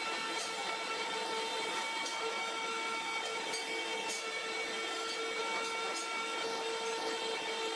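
Belt-driven abrasive grinding wheel running with a steady whine and hiss as a steel knife blade is ground against it.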